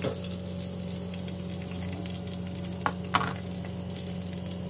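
Sliced onion and garlic sizzling gently in hot oil in a metal pot, over a steady low hum. A utensil clicks sharply against the pot at the start and twice about three seconds in.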